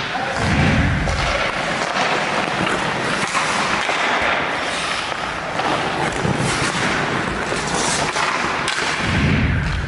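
Ice hockey drill sounds on a rink: skate blades scraping the ice with stick and puck noise, and a few heavy thuds about half a second in, around six seconds and just before the end.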